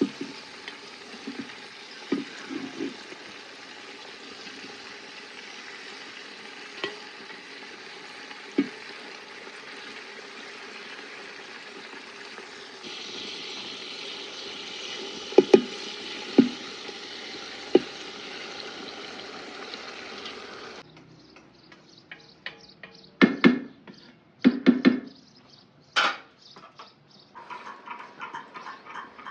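Food frying in a cooking pot: a steady sizzle, with occasional knocks of a utensil against the pot. About two-thirds of the way through the sizzle cuts off, and several louder clattering knocks follow.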